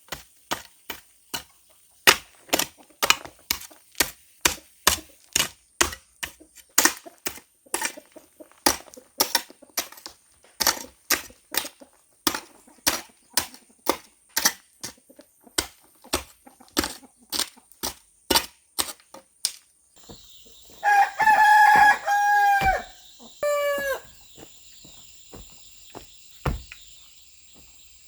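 A hand tool striking repeatedly at a steady pace, about two sharp blows a second. After that a rooster crows twice, a long crow and then a shorter one, and near the end there is a single knock.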